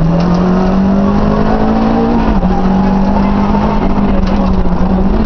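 Renault 5 GT Turbo rally car's turbocharged four-cylinder engine heard from inside the cabin, driven hard on a stage. The engine note climbs under acceleration and drops back at gear changes, just at the start and again about two and a half seconds in.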